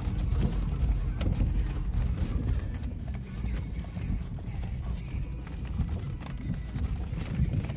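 A vehicle driving over a rough dirt track, heard from inside the cabin: a steady low rumble with frequent knocks and rattles.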